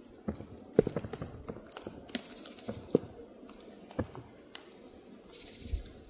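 Dry pine needles and dead leaves crackling and rustling, with scattered sharp clicks and twig snaps, the loudest about a second in and again about three seconds in. Twice a brief high trill sounds behind it.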